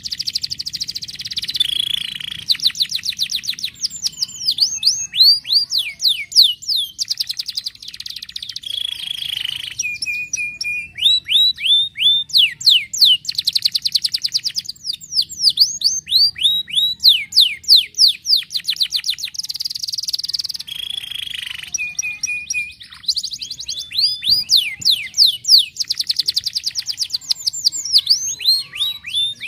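Yellow domestic canary singing a long, loud song of fast trills and runs of falling whistled sweeps. The song comes in phrases with short breaks between them.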